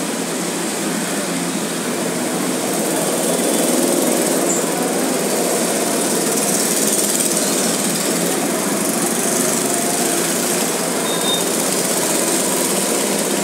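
Several go-kart engines running as the karts lap the track, a steady, dense engine drone that swells slightly about four seconds in.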